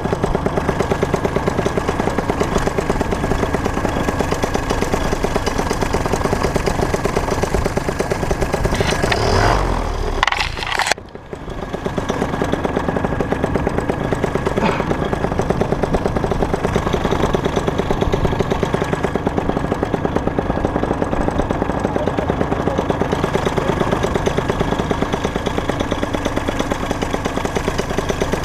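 A small engine running steadily with a fast, even pulse; it dips briefly about eleven seconds in.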